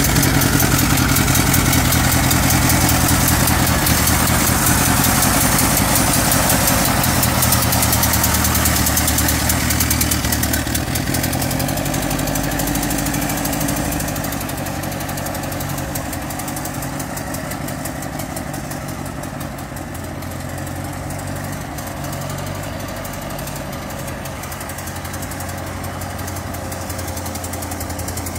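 1924 Ford Model T coupe's four-cylinder side-valve engine running as the car drives away, growing fainter over the first half and then holding steady at a distance, its note shifting a couple of times.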